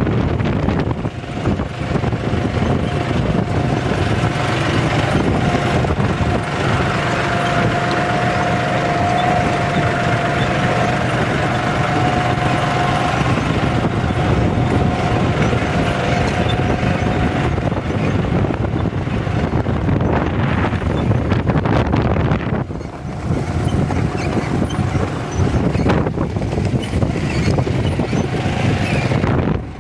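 Farm tractor engine running steadily under load while pulling a seed planter through dry soil, with a faint steady whine that holds for several seconds at a time and wind on the microphone.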